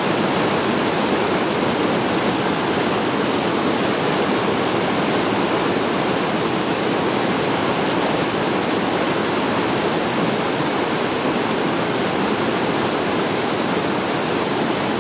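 Mountain stream rushing steadily over boulders: an even, unbroken roar of flowing water with a strong high hiss.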